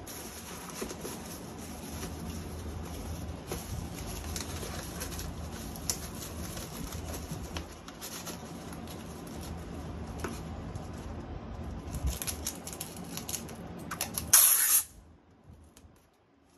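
Cardboard packaging and paper wrapping being handled and opened by hand: continuous rustling and crinkling with scattered crackles. A short, louder burst of it comes near the end.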